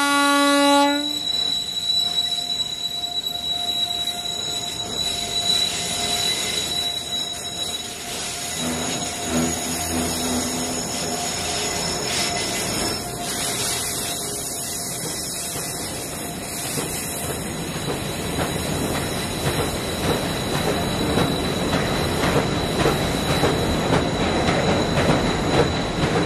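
An electric locomotive's horn cuts off about a second in, then a long freight train of open-top wagons rolls across a steel girder bridge close by: a steady rumble with thin, steady squealing tones from the wheels, and a rhythm of wheel clicks over the rail joints that grows stronger in the second half.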